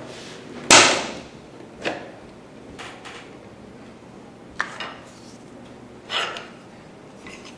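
Plastic clicks and knocks from a TSC TDP-245 desktop label printer being opened and loaded. A sharp snap comes about a second in as the release levers free the cover. Several lighter clicks and knocks follow as the cover is lifted and a plastic supply holder is pushed into a roll of labels.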